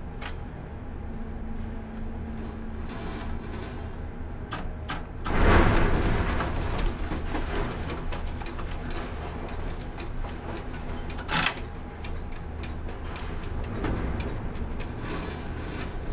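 Container crane machinery heard from the operator's cab, a steady low hum, while the spreader lowers a container into the ship's hold. A loud rush of noise swells about five seconds in and fades, and there is a short sharp knock near the end.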